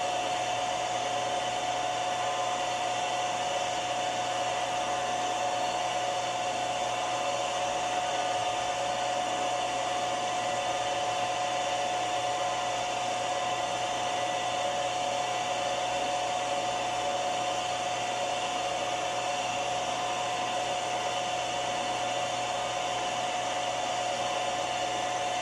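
An electric machine-tool motor running steadily with an even whine, holding one pitch throughout.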